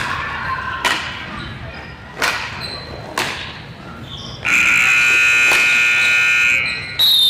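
Sharp knocks of hockey sticks and ball, then a loud buzzer held for about two seconds, and a short, higher signal blast near the end.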